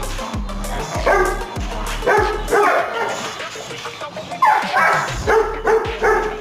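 Labrador retriever barking in short repeated barks, about two a second, with a pause of about a second and a half in the middle.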